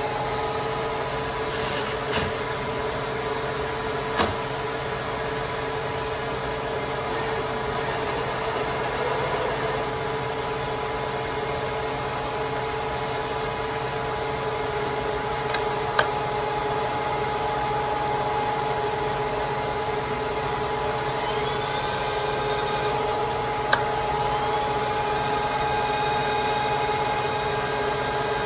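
Willis 500VS vertical milling machine running under power: a steady electric-motor hum with a couple of constant tones. A few sharp single clicks come about 4, 16 and 24 seconds in, and faint rising and falling whines come late on.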